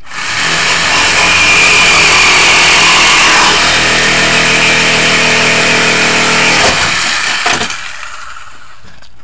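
Handheld power tool running hard as it works through sheet metal at the hood latch. It starts abruptly, runs steadily for about seven and a half seconds, then stops with a couple of clicks.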